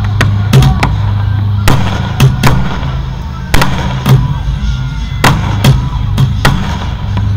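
Aerial fireworks bursting overhead: about a dozen sharp bangs, unevenly spaced, over loud music with a strong low bass.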